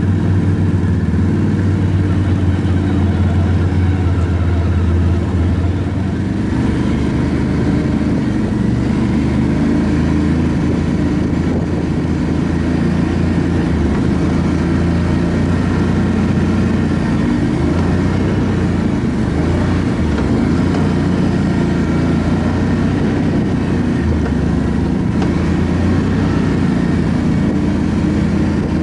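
ATV engine running steadily, with little change in pitch.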